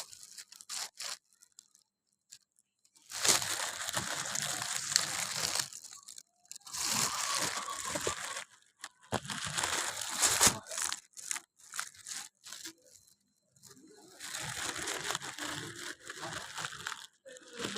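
Crinkly, crunching rustle in four stretches of one to three seconds each, with quiet gaps between.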